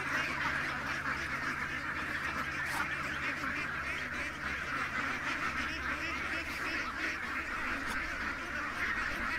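A large flock of domestic ducks, Pekins among them, quacking together: a steady, overlapping chatter of many birds without a break.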